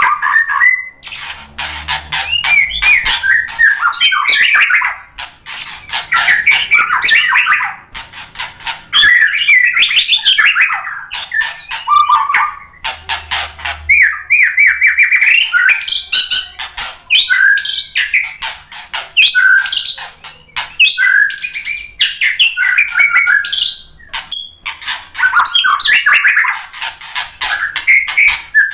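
White-rumped shama singing loudly in long, varied bouts of rapid sharp notes and whistles, broken by short pauses every few seconds.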